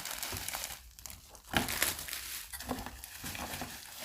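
Packaging crinkling and rustling as parts of a cordless mop are handled and unwrapped, with sharp crackles about a second and a half in.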